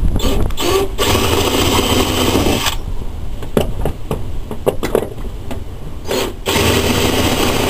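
Power drill running in two bursts of a little under two seconds each, drilling or driving screws into the brace, with a steady low wind rumble on the microphone underneath.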